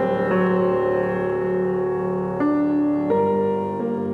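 Slow instrumental intro music: held chords that change about every second.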